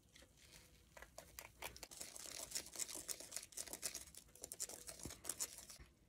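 Dense, rapid crackling and small clicks from handling a Popin' Cookin' DIY candy kit, starting about a second in and loudest in the middle few seconds.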